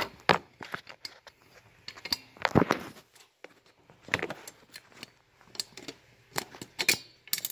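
Scattered light clicks and metallic rattles from a manual fire alarm pull station being handled, about half a dozen separate knocks with the loudest about two and a half seconds in. No alarm is sounding.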